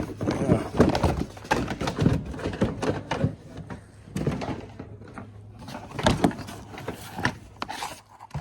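Plastic undershroud being worked into place under a car: a string of irregular knocks, scrapes and rattles of plastic against the body.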